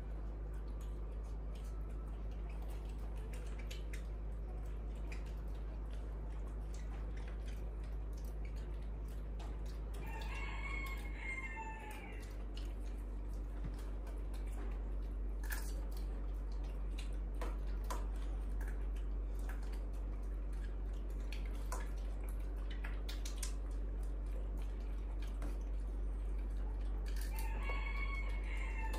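A rooster crows twice, about eleven seconds in and again near the end, over a steady low hum. Light clicks of a spoon against a steel bowl are scattered throughout.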